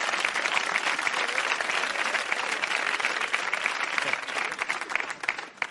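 Audience applauding a joke, a dense patter of clapping that dies away near the end.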